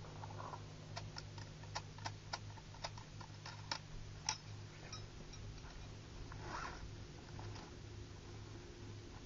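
A dozen or so sharp clicks and clacks of a Nemesis Arms Vanquish .308 takedown rifle's parts being handled during assembly, the loudest a little past four seconds in. A softer rustle of the backpack follows, over a steady low hum.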